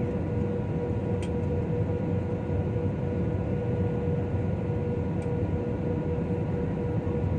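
Steady cabin noise inside a jet airliner on approach: the low rush of airflow and engines with a constant hum. Two faint ticks come about a second in and again about five seconds in.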